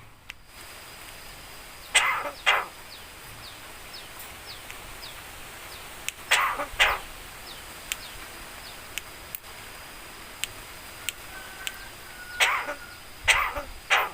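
Javan myna mimicking a human cough: harsh cough-like bursts, mostly in pairs, about two seconds in, again at six and a half seconds, and three more near the end, with small clicks and faint short chirps in between.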